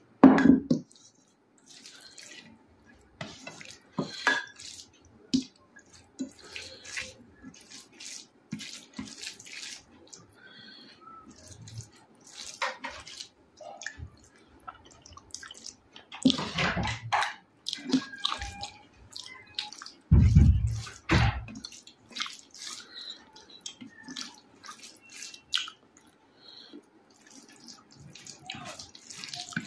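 Close-miked wet eating sounds of rice and chicken curry being chewed: scattered smacks, squelches and clicks. There are a couple of louder low thumps, one right at the start and one about twenty seconds in.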